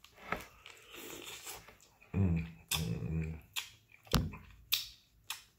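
Close-up eating sounds of shrimp being peeled and eaten: a run of sharp clicks and wet smacks from shell and mouth, about one every half second in the second half. About two seconds in, the eater gives a short low hum.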